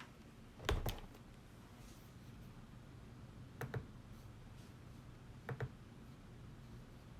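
Three pairs of short, sharp clicks a few seconds apart, like double-clicks at a computer, the first pair the loudest, over a low steady hum.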